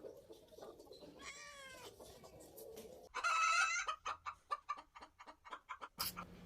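Chicken calling: a loud, pitched call about three seconds in, followed by a quick run of clucks, about five a second, for two seconds.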